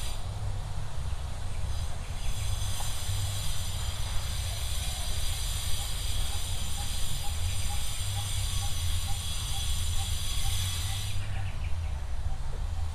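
Outdoor ambience: a high, shrill insect buzz that comes in about two seconds in and stops about two seconds before the end, over a steady low rumble.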